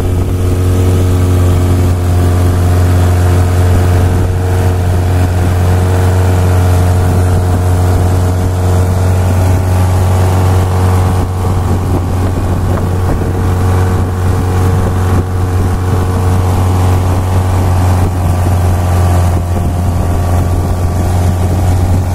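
Long-tail boat engine running steadily at speed, a loud, unbroken deep drone, with water rushing along the hull.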